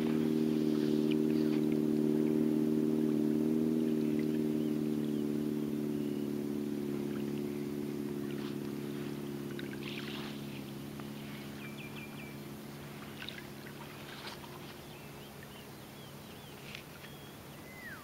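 A steady engine drone fades away slowly, with birds chirping briefly here and there.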